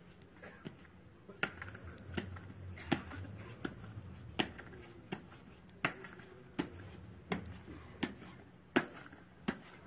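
Sharp, evenly spaced thuds, about one every three-quarters of a second, starting about a second in: the beat of troops marching in step.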